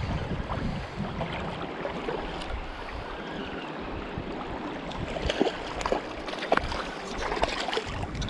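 River water running steadily, with a few short sharp splashes and knocks from about five to seven and a half seconds in.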